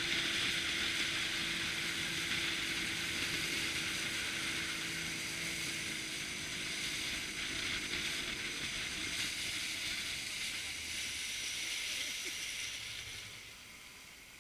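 Inflatable boat under way: water rushing and hissing along the hull with a steady low hum in the first half. The sound drops away about a second before the end as the boat slows toward the beach.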